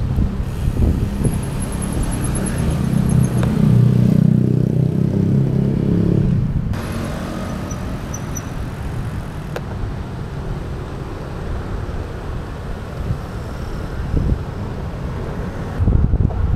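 Street traffic and a steady rush of wind and road noise heard from a moving bicycle. A motor vehicle's engine passes close, loudest from about two to six seconds in.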